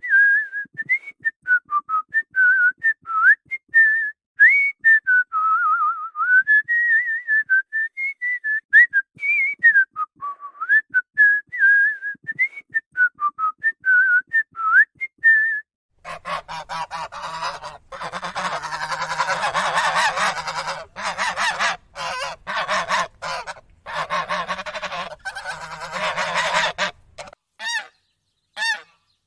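A person whistling a wandering tune for about fifteen seconds. Then a flock of geese honking loudly together for about ten seconds, followed near the end by short single honks, about three a second.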